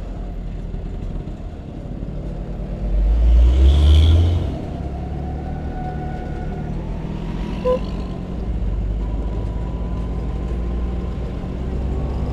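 Riding noise of a Vespa P150S scooter's two-stroke single-cylinder engine running steadily in traffic, heard through a helmet-mounted camera, with traffic around it. A louder rush swells about three seconds in and fades a second and a half later.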